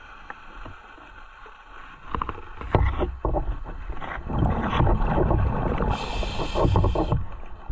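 Scuba diver breathing through a regulator underwater. An exhalation of bubbles bubbles and clatters for about three seconds, starting near the three-second mark. About six seconds in comes a short hissing inhalation.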